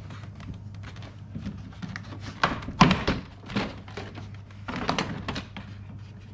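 A few irregular knocks and clunks, the loudest about three seconds in, from handling a Jeep door's inner trim panel and parts while refitting it. A steady low hum runs underneath.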